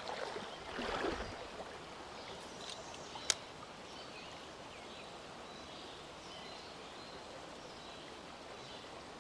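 Steady rush of a shallow creek running over rocks, with a brief splash-like swell about a second in and a single sharp click a little past three seconds. Faint high chirps come and go later.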